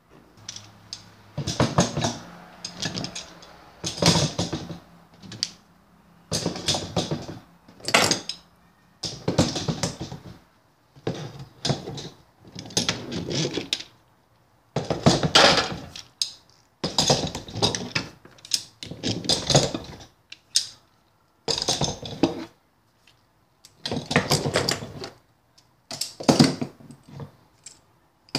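Steel F-clamps clanking and rattling as they are set one after another into the slots of a wooden rack: about a dozen separate bursts of metal clatter and knocks on wood, with short pauses between them.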